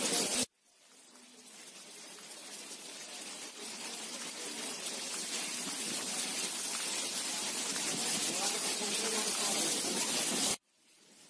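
Heavy monsoon rain pouring onto a waterlogged paved road, a dense steady hiss of falling water. The sound cuts out abruptly about half a second in and again near the end, each time swelling back up over a few seconds.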